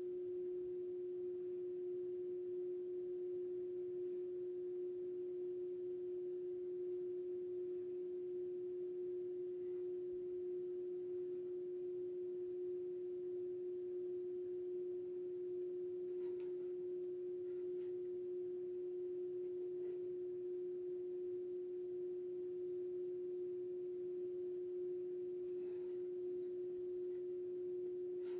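A steady hum at a single pitch that never wavers, with a few faint ticks here and there.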